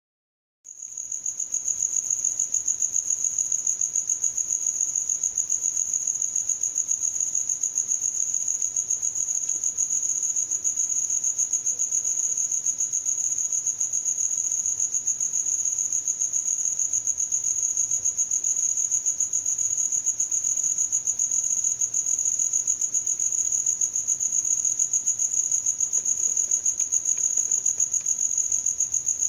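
A cricket singing: a continuous, high-pitched chirping made of rapid, even pulses, starting just under a second in.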